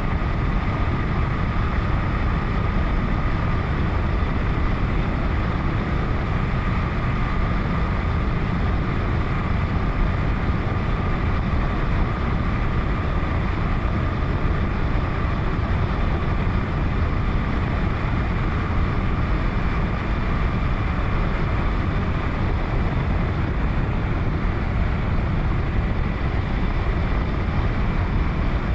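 Motorcycle riding at a steady cruising speed: wind rushing over the microphone, with the KTM 1090 Adventure's V-twin engine running evenly underneath and no revving or gear changes.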